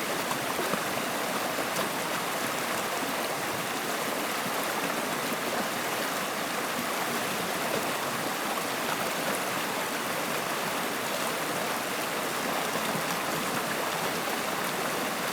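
Flowing water running steadily: an even, unbroken rush with a light babble.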